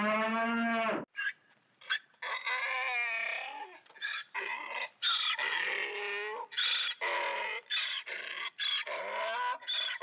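A Highland cow mooing for about the first second, then a donkey braying over and over: a run of short rising and falling calls in quick succession.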